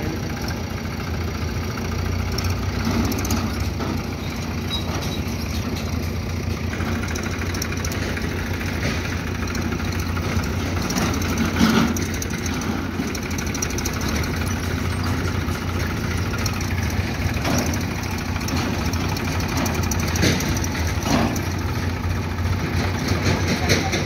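Heavy diesel engines running steadily at idle, a backhoe loader and a farm tractor, with a few short clunks, the loudest about halfway.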